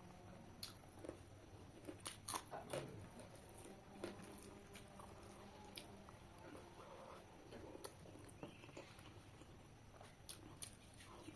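Faint chewing and mouth sounds of someone eating, with scattered soft clicks, a few sharper ones about two to three seconds in.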